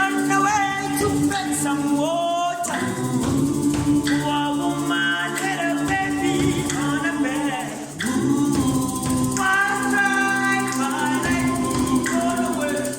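Music: a song with singing voices over held low tones, with a short dip in level about two-thirds of the way through.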